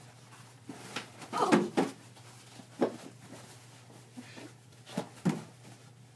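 About five separate knocks and thumps of an indoor floor-hockey game: ball, sticks and goalie pads striking, the loudest and longest about one and a half seconds in.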